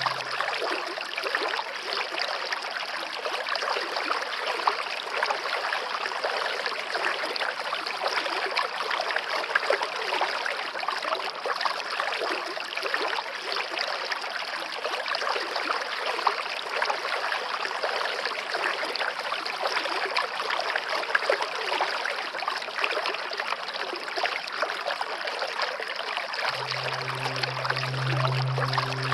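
Waterfall: a steady, even rush of falling water. Near the end, low sustained music notes come in under it.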